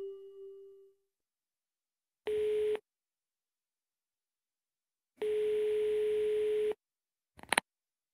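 A chime dies away in the first second. Then a telephone ringing tone, a steady single pitch near 425 Hz over a faint line hiss, sounds twice: a short ring about two seconds in and a longer one about five seconds in. A short click follows near the end.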